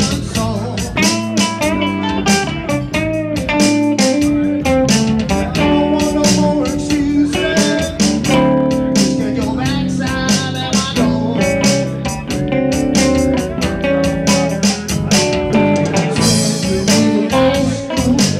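Live rock band playing: electric guitar and bass guitar over a drum kit keeping a steady beat.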